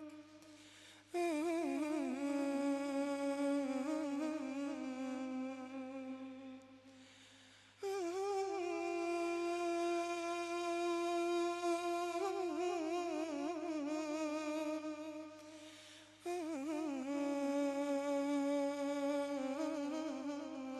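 A radood's male voice chanting three long wordless phrases. Each starts suddenly, is held with wavering melismatic ornaments, and fades away. A steady low hum lies underneath.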